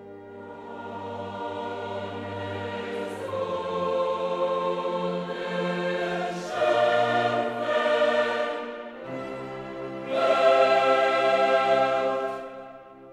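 Background music: a choir singing sustained chords that swell louder twice in the second half.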